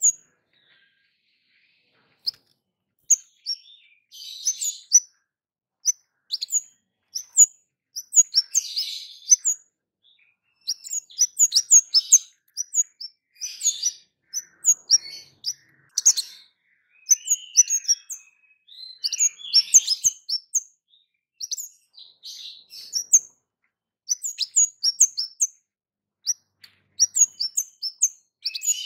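Kemade songbird calling: a rapid string of sharp, high 'cit' chirps mixed with short buzzy twittering phrases, with brief pauses between bursts.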